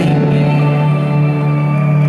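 Live band holding one long, steady low chord at the end of a song, heard amplified through an arena from within the crowd.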